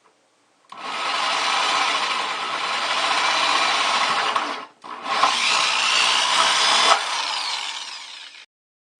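Power drill cutting a hole through the wall of a plastic 5-gallon bucket, in two long runs with a brief pause near the middle.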